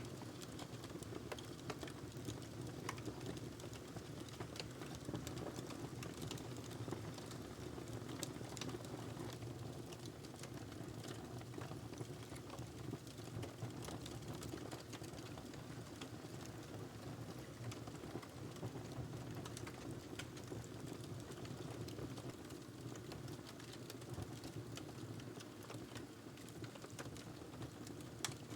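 Wood fire crackling: a steady low rumble of burning logs with scattered small pops and snaps, and a couple of sharper pops near the end.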